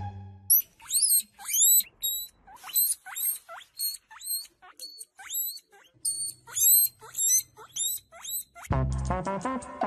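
Guinea pig wheeking: a rapid run of short, high squealing calls, each sweeping up in pitch, about two or three a second. Music comes in near the end.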